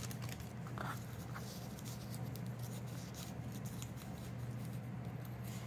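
Faint rustling of thin paper being lifted and smoothed by hand, over a steady low hum.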